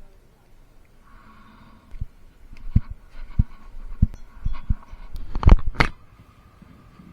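A run of irregular knocks and thumps close to the microphone, about a dozen over four seconds, the loudest pair near the end, over a faint steady hum.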